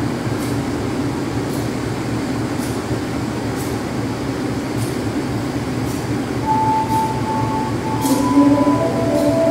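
Steady low rumble of a passenger train standing at a station platform with its power running, with faint high ticks about once a second. From about six and a half seconds in, a few held tones at different pitches, like a short melody or chime, come in over the rumble.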